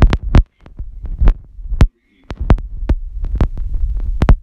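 Handling noise from a phone's microphone being rubbed and knocked as the phone is moved about: a loud low rumble broken by many sharp clicks, cutting out completely twice, about half a second and two seconds in.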